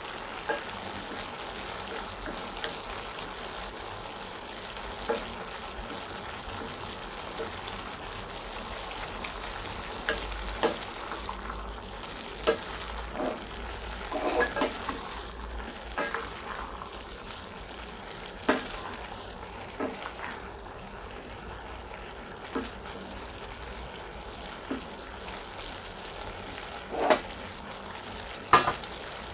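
Cabbage, carrots and chicken sizzling in a stainless steel pan as they are stir-fried with a wooden spatula, with scattered scrapes and knocks of the spatula against the pan; the two loudest knocks come near the end.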